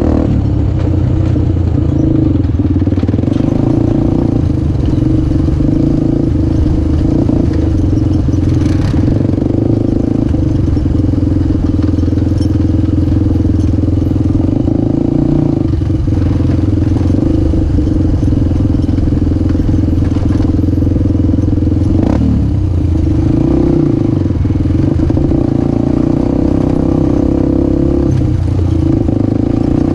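Honda CRF250X dirt bike's single-cylinder four-stroke engine running at steady revs as the bike is ridden along a dirt trail, with a brief dip and rise in revs about three-quarters of the way through.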